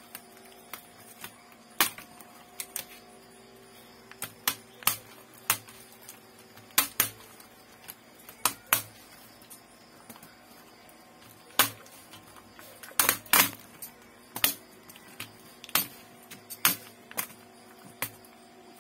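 Irregular sharp plastic clicks and taps from handling laptop keyboard and case parts, about one or two a second, with a louder cluster of clicks past the middle. A faint steady hum runs underneath.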